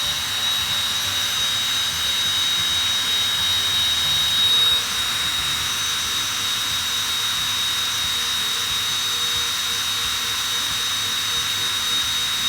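A high-speed rotary tool running steadily, with a constant high whine over a hiss, spinning 180-grit sandpaper to hone a freshly installed rocker arm bushing that was too stiff.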